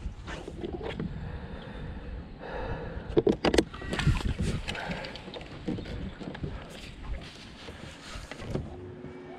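A lure cast from an aluminium boat with a baitcasting rod: a brief rush of line paying out, then a quick cluster of sharp clicks and knocks about three seconds in, with lighter knocks after it, over steady wind and water noise. A faint steady hum comes near the end.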